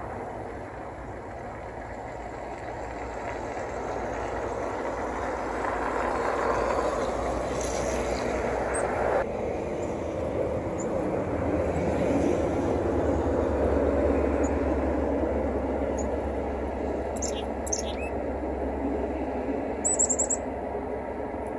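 A distant vehicle's broad rumble swelling over several seconds and easing off, with a low steady hum beneath. A few short, high bird chirps come near the end.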